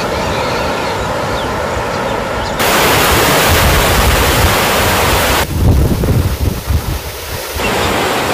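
Floodwater rushing, the sound of a river in spate and water pouring through barrage gates, with wind gusting on the microphone. The sound changes abruptly about two and a half seconds in and again about five and a half seconds in, with low gusty rumbles for a couple of seconds after the second change.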